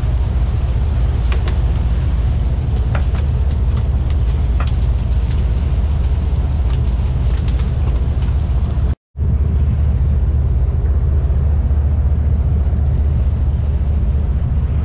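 Steady low drone of a sportfishing boat's diesel engines under way, with the rush of water and wind over it and a few faint knocks. The sound cuts out for a split second about nine seconds in, then the same drone carries on slightly duller.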